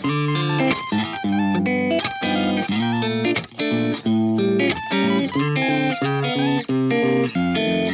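Background music led by an electric guitar over a bass line, with quick changing notes.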